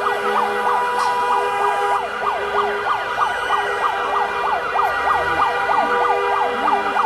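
Many car horns blaring together in a sustained, steady chorus, with a siren yelping over them in quick up-and-down sweeps, several a second.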